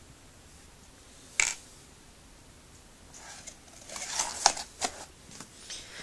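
Small items being handled in a cardboard accessory box: a sharp click about a second and a half in, then a run of rustling and clicking as a small metal piece is picked up.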